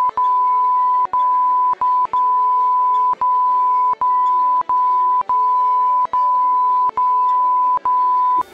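Censor bleep: a loud, steady, high pure tone masking speech, broken by about a dozen brief gaps and cutting off abruptly near the end.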